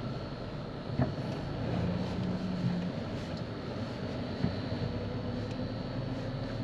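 Car engine and tyres droning steadily, heard from inside the cabin while driving over desert sand. There is a single sharp knock about a second in and a lighter one past four seconds.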